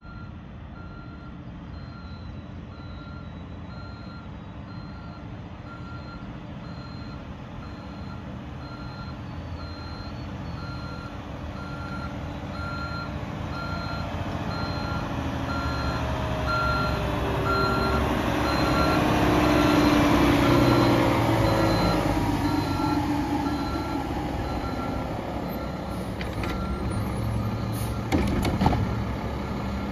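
Mack LEU garbage truck with its backup alarm beeping steadily, about once a second, over the diesel engine. The engine grows louder as the truck comes closer, peaks about two-thirds of the way through, then eases. The beeping stops near the end and a few sharp knocks follow as the truck reaches the cart.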